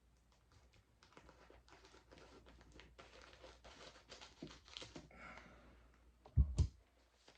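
A blind bag being torn open and handled, with crinkling and small crackles, then a couple of low thumps close together near the end.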